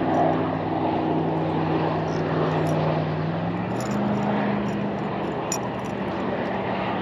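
A steady engine drone, its low hum stepping up slightly in pitch a little past halfway, over a rushing background noise, with a few faint clicks.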